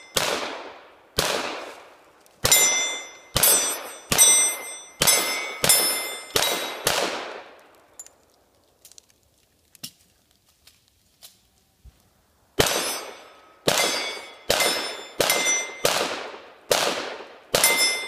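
Gunshots fired at round steel plate targets, each shot followed by the ringing of a hit plate: seven shots about a second apart, a pause of several seconds with a few faint clicks of gun handling, then seven more shots at the same pace.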